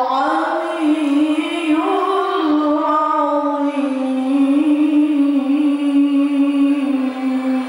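A woman singing into a microphone, holding one long, steady note through the second half.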